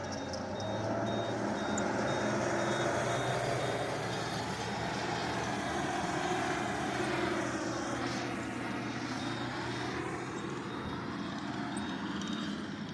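Compact track loader's engine running steadily under load as it works a pile of clay fill, with a faint high electronic beep repeating throughout. The beep is the kind of warning the machine has been giving for low voltage from a failing charging system.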